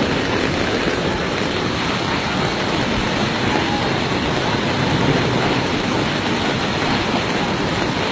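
Steady, loud rushing of a flash-flood torrent, muddy water pouring down a rock cliff face in a rainstorm.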